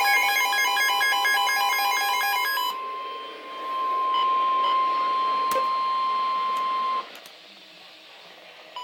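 Emergency Alert System broadcast tones: rapidly warbling digital header bursts end under three seconds in, then a single steady alert tone, the Weather Service warning tone, sounds for about three and a half seconds and cuts off, leaving faint hiss.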